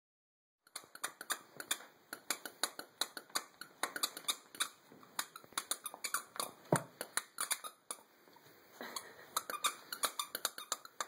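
Dog squeaky toy squeaking over and over in quick short squeaks, several a second, as two dachshund puppies tug and chew it between them.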